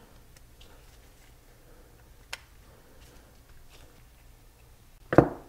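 Faint small clicks of a screwdriver working the reservoir cap screws on a motorcycle's Brembo front brake master cylinder, with one sharp click about two seconds in. A short loud burst comes near the end.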